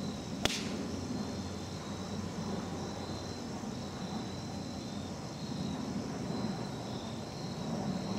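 A single sharp crack of a golf club striking the ball about half a second in, followed by faint insect chirring over a steady low outdoor background hum.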